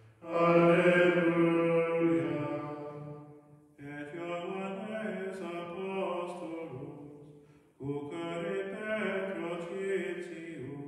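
Men's voices singing a chant together, three phrases of about three seconds each with short breaths between.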